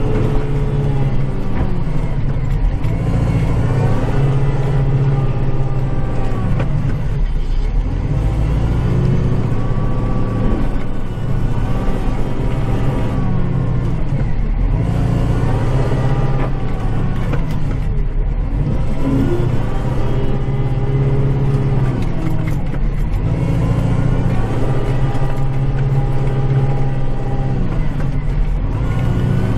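Kubota cab tractor's diesel engine working under load while clearing snow, its pitch rising and falling every few seconds as it revs up and eases off.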